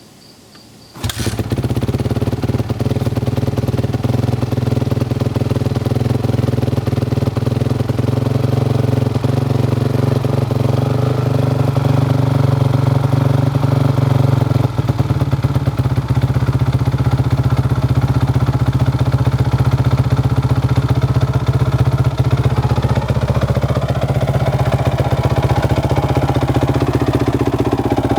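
2007 Honda CRF450R's single-cylinder four-stroke engine cold-starting with the choke on: it fires suddenly about a second in and then runs steadily at a choked fast idle.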